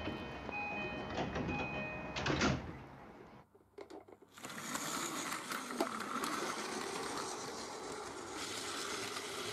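A short door-closing chime of a few held electronic tones, ending in a clatter about two and a half seconds in. Then, after a brief pause, a Plarail toy train's battery motor whirs and its wheels rattle steadily on the plastic track as it pulls away.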